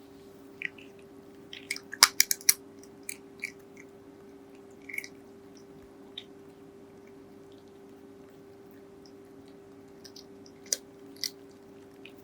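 A cat chewing dry kibble: irregular sharp crunches, a quick cluster about two seconds in, then sparser bites, with a couple more near the end. A steady low hum runs underneath.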